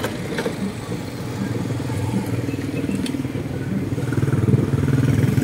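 Engine hum from a passing motor vehicle that grows louder about four seconds in, with a few faint clicks over it.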